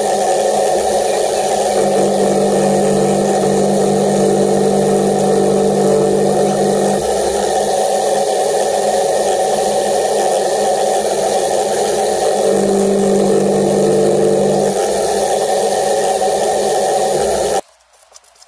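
Benchtop milling machine running steadily, its cone-shaped chamfer cutter cutting an aluminium fly-reel part while the rotary table is turned by hand; the hum shifts in tone about seven seconds in and again about twelve seconds in. The sound stops abruptly near the end.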